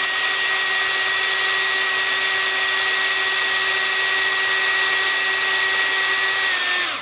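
Small electric drill spinning a hollow tube cutter into a foam block, running with a steady high whine, then slowing and stopping right at the end.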